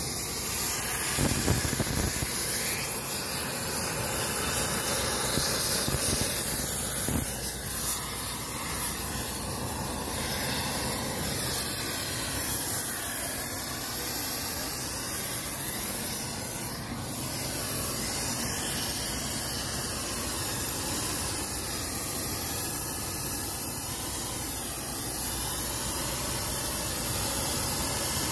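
A steady hiss that runs on without a break.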